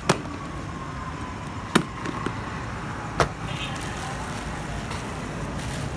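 Clip-lock plastic food container opened by hand, its lid latches snapping open in three sharp clicks with a fainter one between, about a second apart, over steady traffic noise.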